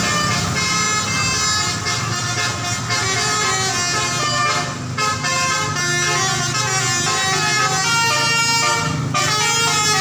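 Basuri telolet multi-tone bus horn playing a tune of quick, stepped notes, several horn tones sounding together, over a steady low rumble.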